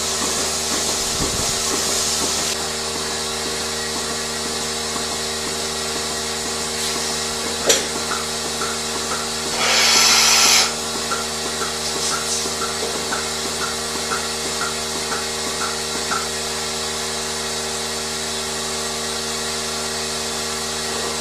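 Steady machinery hum in a dairy barn, made of several steady tones. About halfway through there is a short burst of hissing air, followed by a run of short high beeps or chirps about twice a second.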